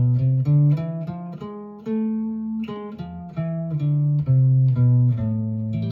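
Guitar playing the A harmonic minor scale from A at the 5th fret, one picked note at a time. The notes climb and come back down, and the last one is left ringing. The augmented step between F and G sharp gives the scale its exotic sound.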